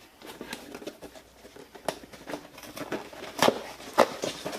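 Car parts and their packaging being handled and rummaged through in a box: light rustling and scattered clicks, with two sharper knocks near the end, about half a second apart.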